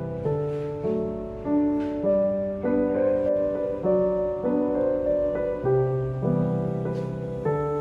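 Background piano music: slow, gentle chords and melody with a steady pulse.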